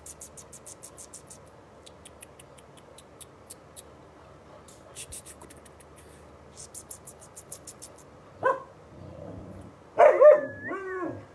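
Alaskan malamute puppies: runs of light, quick ticking for the first several seconds, then a single short bark about eight and a half seconds in. Near the end comes a loud bark that runs straight into a wavering yowl, rising and falling in pitch.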